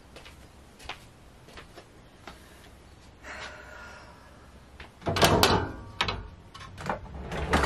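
Soft, scattered steps and clicks, then, about five seconds in, a kitchen drawer is pulled open loudly, with the things inside rattling. A few lighter knocks and clatters follow.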